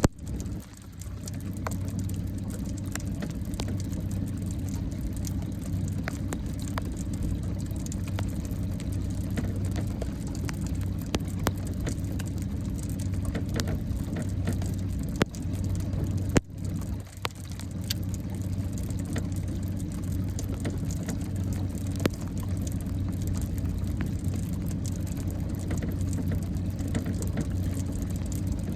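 Small boat's motor running with a steady low hum, with scattered faint clicks over it. The hum dips briefly twice, once just after the start and once a little past halfway.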